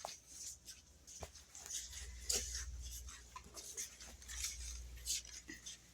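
Quiet indoor ambience: a low steady hum with scattered light clicks and rustles, like things being handled, and faint background voices.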